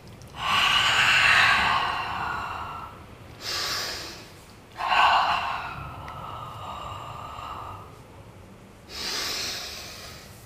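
A woman's audible Pilates breathing: two long, forceful breaths out through the mouth, each followed by a short breath in, in time with the double leg stretch.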